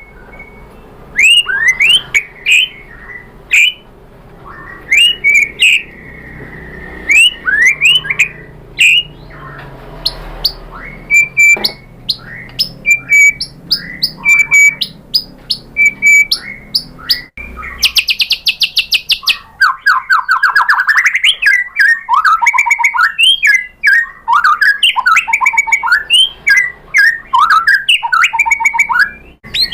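White-rumped shama singing a loud, varied song of quick whistled notes that sweep up and down, its mix of learned phrases from other birds. About two-thirds of the way through it breaks into a rapid trill, followed by a fast run of chattering phrases.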